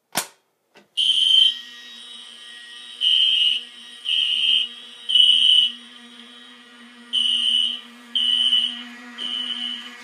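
A Fire-Lite dual-action fire alarm pull station snaps as it is pulled. From about a second in, a fire alarm horn sounds half-second blasts in groups of three, about a second apart with a longer gap between groups: the temporal-3 evacuation pattern. A steady lower hum runs beneath the blasts.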